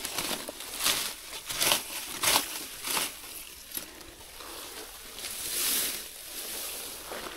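Rustling and crackling of grass and leafy undergrowth being pushed through and handled, in a string of short bursts, with a longer rustle about three quarters of the way through.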